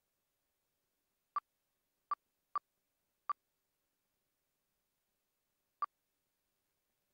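Five short electronic beeps or clicks on the aircraft's radio/intercom audio feed, each a brief tone of the same pitch. Four come within about two seconds, and a fifth follows about two and a half seconds later, with dead silence between them.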